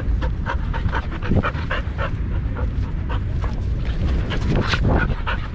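A dog panting quickly and hard, right at the microphone of a camera strapped to its own harness, about three breaths a second, over a steady low rumble.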